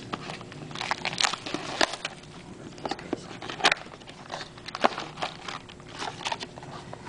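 Trading cards and their packaging being handled: scattered clicks, flicks and crinkly rustles.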